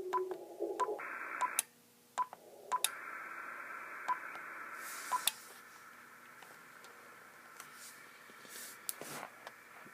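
Shortwave radio receiver being tuned between stations: steady whistling carrier tones that jump abruptly from one pitch to another, with short beeps and clicks, giving way to static hiss about five seconds in.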